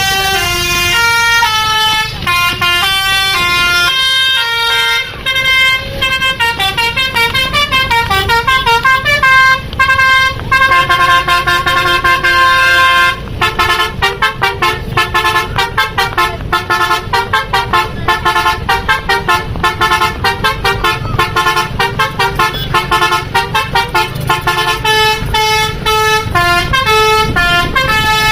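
Basuri telolet bus horn playing melodies: many-toned notes stepping up and down in tunes, breaking into a long fast trill of alternating notes about halfway through, over the low rumble of a bus engine.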